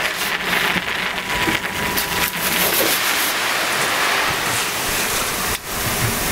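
Gravel pouring in a steady rush out of the slit bottom of a bulk bag onto a heap of stones, with a brief dip near the end.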